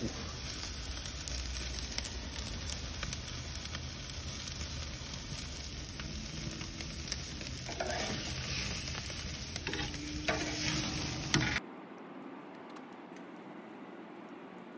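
Ribeye steaks sizzling on a charcoal grill grate over hot coals, with crackles and a few clicks and scrapes of metal tongs turning the meat. The sizzle cuts off suddenly about three-quarters of the way through, leaving only a faint low background.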